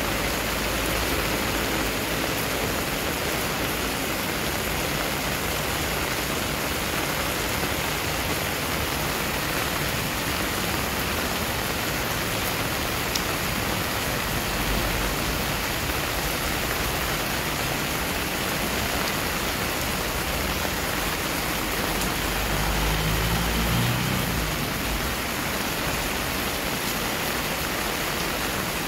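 Steady heavy rain pouring onto a wet concrete yard and garden plants, an even hiss of falling and splashing water. Late on, a low rumble swells briefly under the rain.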